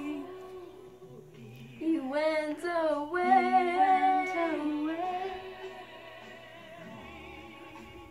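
A female voice singing a held, wavering phrase over a quiet instrumental backing track. The voice drops away about five seconds in, leaving the backing music.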